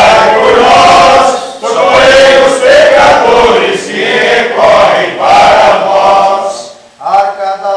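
A congregation, mostly men's voices, singing together in unison. The singing comes in long phrases with short breaks between them.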